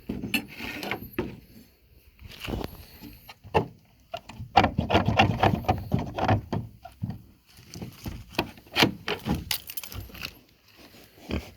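Irregular knocks and clattering, thickest from about four to seven seconds in, with quieter gaps between.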